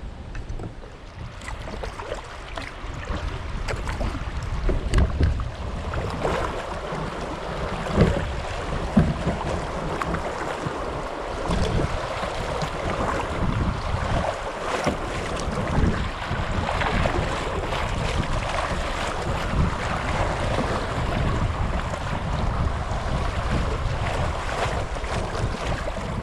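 Water rushing and splashing around a kayak as it is paddled, with wind on the microphone, growing louder over the first few seconds.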